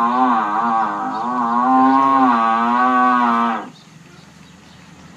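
A cow mooing: one long call lasting nearly four seconds, wavering a little in pitch, that stops abruptly.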